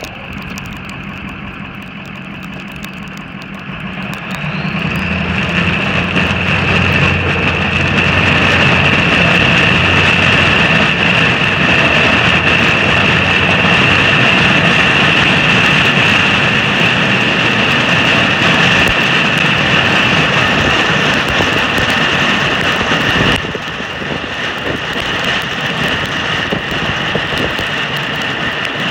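Snowplow vehicle's engine running under load as it pushes snow, with a steady high whine over it. The sound swells about four seconds in and drops back suddenly around twenty-three seconds.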